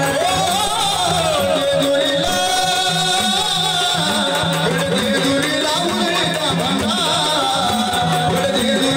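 Jagaran-gondhal singing, a Marathi devotional folk song to Khandoba: a voice sings a long, winding melody over instrumental accompaniment with a steady beat.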